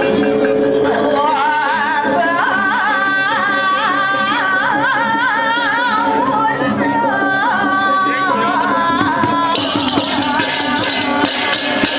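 Accompaniment music for a Balinese ogoh-ogoh performance: a wavering, ornamented melody line, joined about ten seconds in by quick crisp metallic strikes at about four a second.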